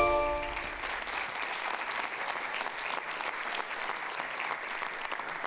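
Audience applauding steadily, a dense clatter of many hands clapping. The last ringing notes of a chime-like music sting die away at the very start.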